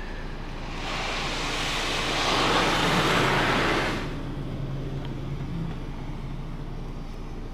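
Touch-free car wash's high-pressure water spray striking the truck's body and windows as the spray arm passes, heard from inside the cab: a hiss that builds about a second in and cuts off sharply around four seconds in, over a low steady machine hum.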